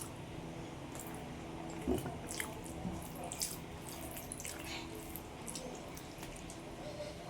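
Close-miked wet chewing and lip-smacking of a person eating rice and curry: many short, sharp mouth clicks, over a steady low hum.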